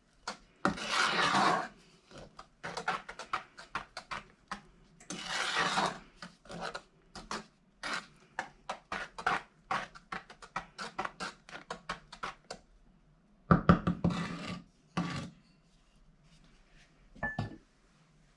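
A spoon stirring and scraping around the bottom of a heavy saucepan of sugar, butter and evaporated milk heating on the stove: quick repeated strokes with a few longer scrapes, and a louder cluster of scrapes about three-quarters of the way through.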